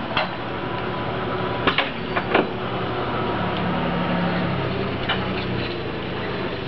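Sharp metallic clicks and clanks from a steel boat stand being adjusted against a hull: a cluster in the first two and a half seconds and another about five seconds in. Under them runs the steady hum of the travel lift's engine.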